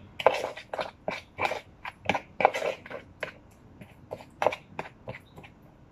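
Spoon stirring and scraping firm almond butter into honey and maple syrup in a bowl: a run of irregular scrapes and knocks.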